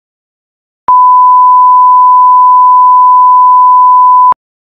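A loud, steady electronic test tone, a single pure pitch held for about three and a half seconds. It starts about a second in and cuts off abruptly, with a click at the start and at the end.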